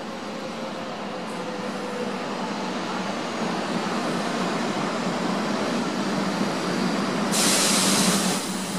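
500 series Shinkansen train rolling slowly into the station with a steady rumble that grows slightly louder. About seven seconds in there is a loud hiss lasting about a second.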